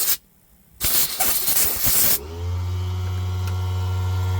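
Two short bursts of hissing, then about two seconds in the sharpening machine's electric motor starts, rising briefly in pitch before settling into a steady hum.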